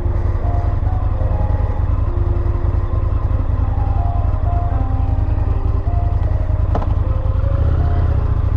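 Indian FTR 1200's V-twin engine running with a steady low rumble, with background music over it.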